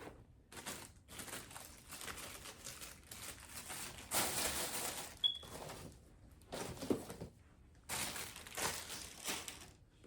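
Plastic packaging crinkling and rustling in uneven bursts as it is handled and unwrapped, loudest about four seconds in and again near the end.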